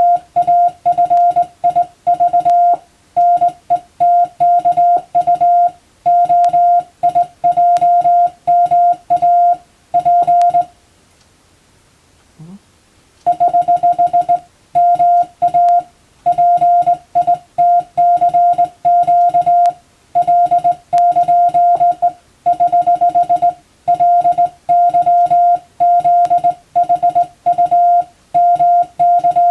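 Morse code (CW) tone: a single steady beep keyed on and off in dots and dashes, sending practice telegram text in groups of characters. The sending pauses for about two and a half seconds near the middle, then resumes.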